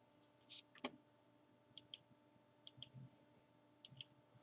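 Near silence with a few faint clicks, most of them in quick pairs about a second apart.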